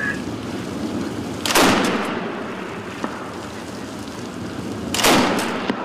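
Pedestal-mounted naval heavy machine gun firing at a sea mine: two loud reports, each with a short echoing tail, about three and a half seconds apart, over a steady background rush of wind and sea.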